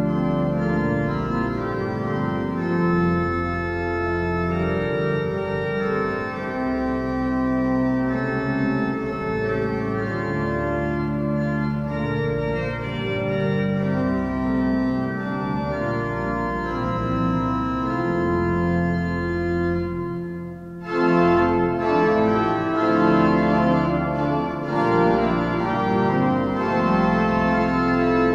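Church pipe organ playing slow, sustained chords over a deep bass line. A little past two-thirds of the way through it breaks off for a moment, then comes back louder.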